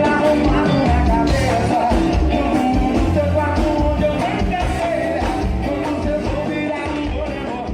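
Rock band playing with singing and steady drum hits, slowly getting quieter.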